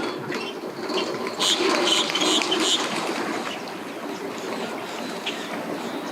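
Boat motor running with water noise at a boat ramp, and a quick run of four short high chirps about a second and a half in.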